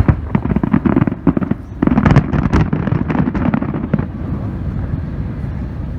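Aerial fireworks bursting in a rapid, dense series of bangs and crackles, dying down to a rolling rumble after about four seconds.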